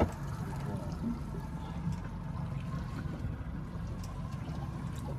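Water lapping and trickling against a boat's hull over a steady low rumble, with a sharp click at the very start.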